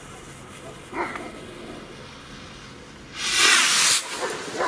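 Firework rocket launching about three seconds in: a loud rushing hiss lasting just under a second.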